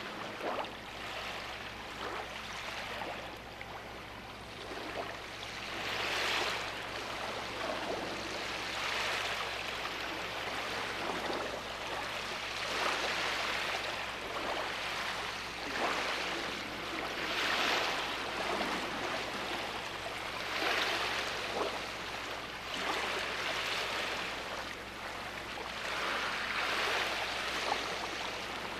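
Sea waves breaking on a beach: a continuous rushing wash of surf that swells and falls back every few seconds as each wave comes in.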